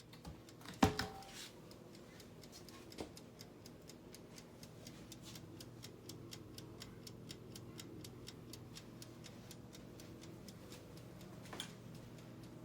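Rapid, even ticking of a toaster oven's mechanical timer, with a sharp knock about a second in and a faint steady hum underneath.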